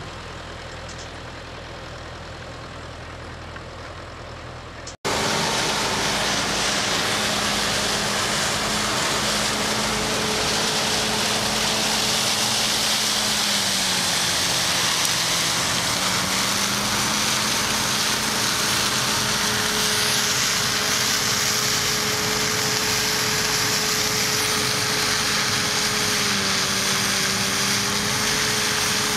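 A tractor engine runs steadily for the first few seconds. About five seconds in, a cut brings a louder combine harvester harvesting rapeseed, with a steady engine drone over the hiss of threshing and chaff being spread. The engine note dips briefly a couple of times.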